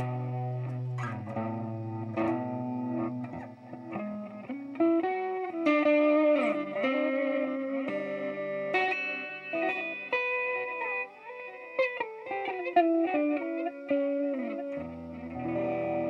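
Electric guitar played through a BOSS DD-8 Digital Delay pedal in its reverse delay mode: a melodic line of plucked notes and chords, with a few string bends in the middle and later.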